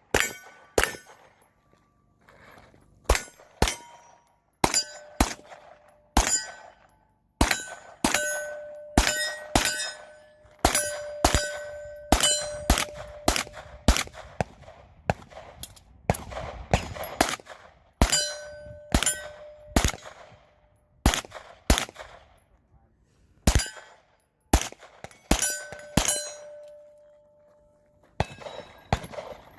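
Pistol shots fired in quick groups at steel plates, with the struck plates ringing out after the hits.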